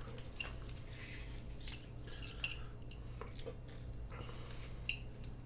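Light clicks and rustles at irregular intervals from a motorcycle wiring harness being handled, its plastic connectors and wires knocking together, over a steady low hum.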